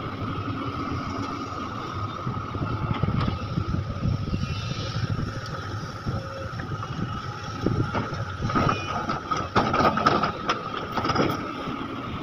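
Large Sumitomo hydraulic excavator working, its diesel engine and hydraulics running with a steady rumble and a constant whine. About eight to eleven seconds in comes a run of louder clattering knocks as the bucket loads ore into the steel bed of a dump truck.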